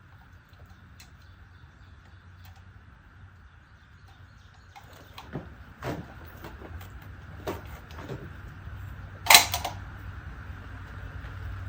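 A single rifle shot about nine seconds in, the loudest sound, with a short second crack or ring following it. A few quieter clicks and knocks come before it, typical of handling the rifle while settling into position.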